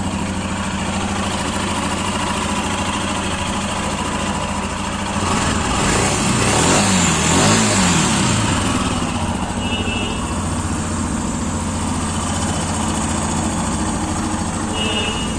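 Royal Enfield Himalayan single-cylinder engine idling with a freshly fitted timing chain tensioner, after a worn tensioner whose lock had failed had caused the timing chain to rattle. About six seconds in it is revved once, rising and falling over a couple of seconds, then settles back to idle.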